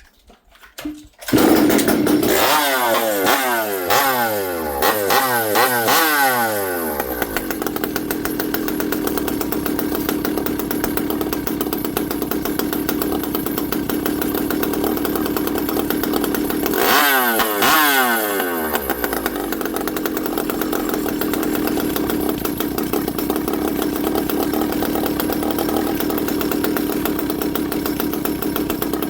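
Stihl 064 two-stroke chainsaw, a freshly rebuilt high-compression build, starting about a second in. It is revved several times, each rev falling back, settles to a steady idle, is revved once more about seventeen seconds in, then returns to idle.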